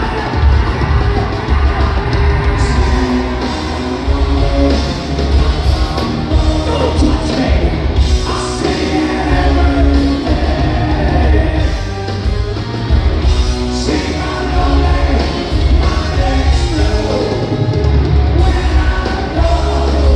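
Live hard rock band playing with electric guitars and a heavy, steady low end under lead vocals, heard from the audience in a large theatre.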